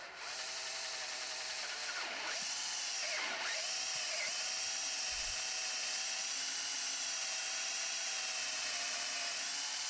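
Power drill running a 21/64-inch bit, drilling out a stripped M8 x 1.25 threaded hole in a metal housing to size it for a Helicoil insert. A steady motor whine that sags in pitch twice, about two and three seconds in, as the bit bites, then holds steady.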